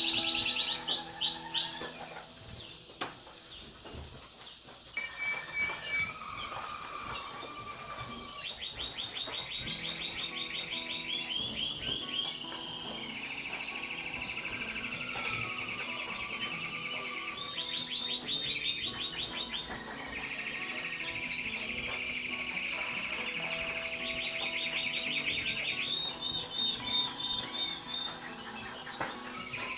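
Canaries singing long rolled trills of fast repeated notes, changing from one trill to the next every couple of seconds, with many short high peeps over them.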